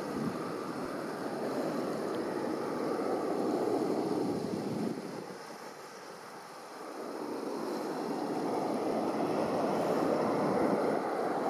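Steady outdoor rushing noise that swells and fades, dipping quieter about five seconds in and building again after about seven seconds.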